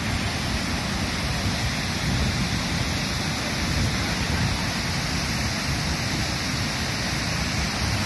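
River water pouring over a long, low concrete weir in high flow and churning into white water below it: a steady, even rush.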